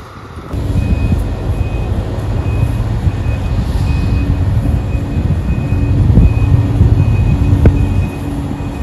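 A heavy vehicle's engine running with a steady low rumble, with an electronic reversing alarm beeping over it again and again. There is a single sharp knock near the end.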